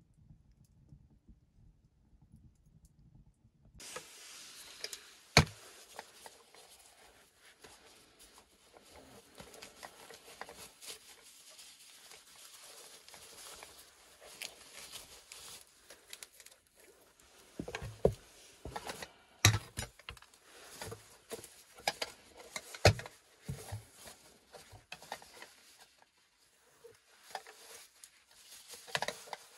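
Rustling of a stuff sack being handled and packed, with scattered clicks and knocks against the wooden platform, after a few near-silent seconds. The sharpest knock comes about five seconds in, and a run of knocks about two-thirds of the way through.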